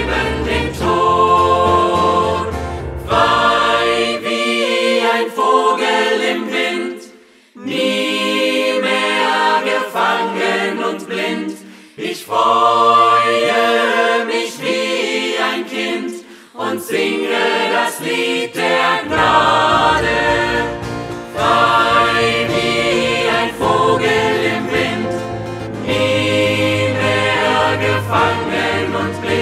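Choir singing a German Christian song over instrumental backing. About four seconds in, the low backing drops out and the voices go on nearly alone, with short breaks; the low backing comes back about nineteen seconds in.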